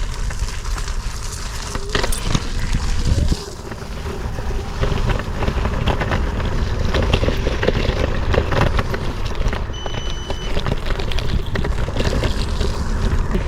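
Steady low rumble with crackling wind buffeting on the microphone, as when travelling.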